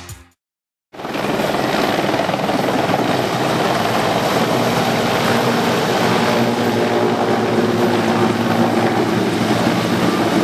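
Mil Mi-24P helicopter flying low, its main rotor and twin turboshaft engines running with a loud, steady sound that cuts in abruptly about a second in.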